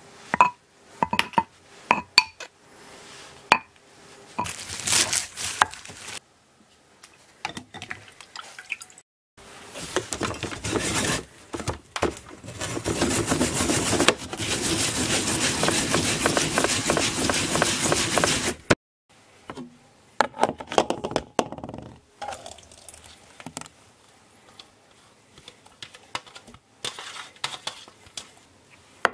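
A few light clinks of a ladle against a metal pot and bowl, then daikon radish grated on a flat metal grater: a long run of fast rasping strokes lasting several seconds, after which only scattered small ticks and drips remain.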